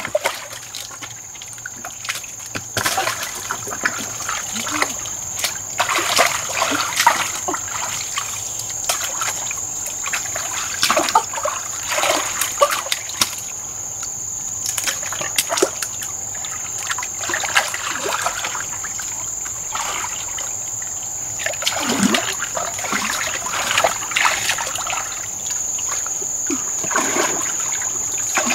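Irregular splashing and sloshing of shallow muddy water as hands grope and grab for fish, with water trickling throughout. A steady high-pitched whine runs under it the whole time.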